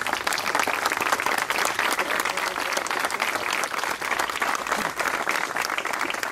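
A crowd applauding, many people clapping hands at a steady level.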